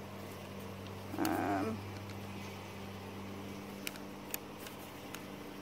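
A steady low hum, with a short wavering vocal sound lasting about half a second about a second in, and a few faint clicks later.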